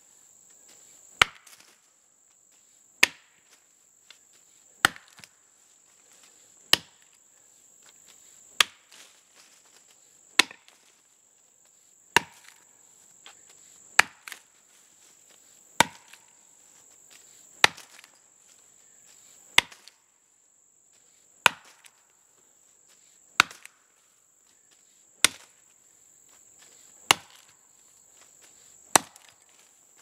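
Axe chopping into a standing tree trunk, clearing out the front felling notch above a crosscut-saw kerf: single sharp strikes at an even pace, about one every two seconds, each followed by a few fainter knocks.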